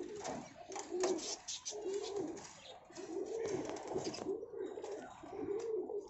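Domestic pigeons cooing, one short rising-and-falling coo after another, overlapping from several birds. Sharp clicks and rattles of the wire-mesh cage door being unlatched and opened come through, mostly in the first couple of seconds.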